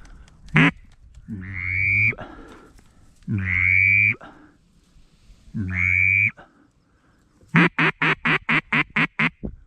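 Mallard-style quacking: a short quack, three long drawn-out quacks, then a fast run of about ten short quacks near the end.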